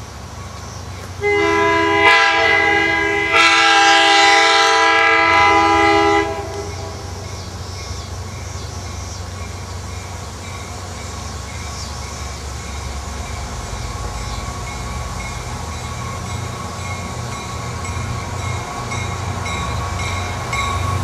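Horn of an approaching diesel passenger locomotive, a GP40H-2, sounding two blasts for a grade crossing about one to six seconds in, the second longer than the first. After that comes the low rumble of the diesel engines, growing steadily louder as the train draws near.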